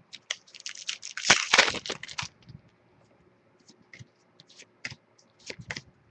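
Trading-card pack wrapper being torn open and crinkled, a dense run of tearing and crinkling over the first two seconds, loudest about a second in. Then scattered light clicks and rustles as the cards are handled.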